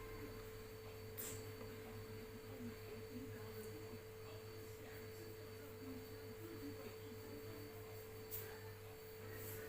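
Steady electrical hum with a clear tone, with two faint sharp clicks, about a second in and about eight seconds in.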